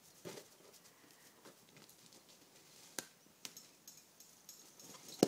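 Faint scattered taps and scuffs of a puppy playing with balloons, with a sharp click about three seconds in and a louder one near the end.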